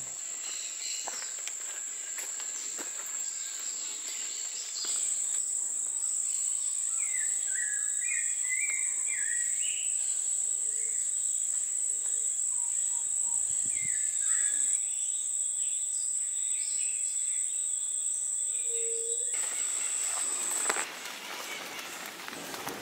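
Forest insects droning with a steady high-pitched whine that grows louder about five seconds in and cuts off shortly before the end. Short chirping bird calls come in the middle.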